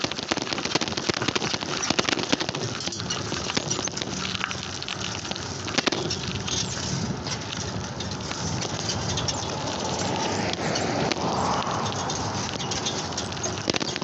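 Bicycle rolling along pavement: steady tyre and road noise with a constant crackle of small clicks and rattles.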